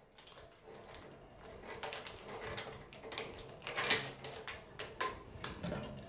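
Braided steel flexible hose nuts being unscrewed by hand from chrome angle valves: irregular small metallic clicks, scrapes and knocks, the loudest a little before the four-second mark.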